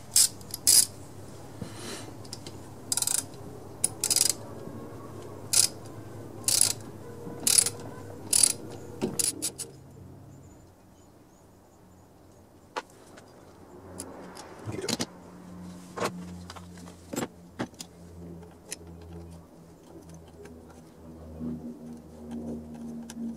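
Ratchet clicking in short strokes, about one a second, as the bolts holding the valve cover on a Briggs & Stratton small engine are backed out. It then gives way to softer metal clinks and knocks as the loosened parts are handled.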